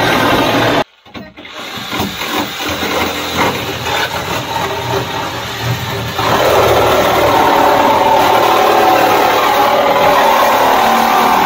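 Reciprocating saw (Sawzall) cutting through the rusted sheet-metal trunk floor. It stops abruptly about a second in, followed by a few seconds of uneven scraping and clattering of the loose rusty metal. The saw starts cutting again about six seconds in and runs steadily.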